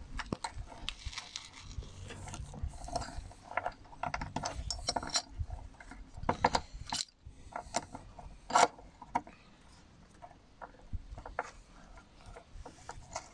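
Steel chain links and small metal clamps clicking and rattling against a steel plate as the chain is clamped along its edge. Scattered sharp metallic clicks, the loudest about eight and a half seconds in.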